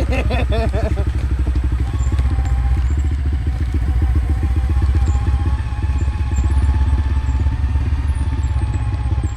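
Motorcycle engine running steadily at low revs, an even low pulsing rumble with no revving.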